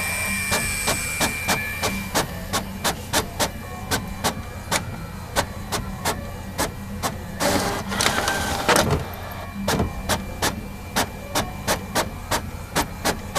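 Printer mechanism running: a steady hum under sharp, regular clicks, about three a second, with a louder stretch of noisy whirring about eight seconds in.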